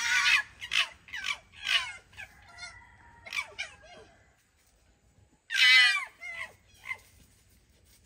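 Two foxes screaming at each other in a series of harsh, wavering calls. There is a pause of about a second past the middle, then one loud, longer scream and a few shorter ones. The calls are a screaming match between the pair.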